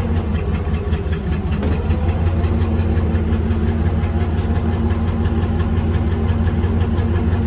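Heavy diesel engine idling steadily, a low, even drone with a fine rapid clatter.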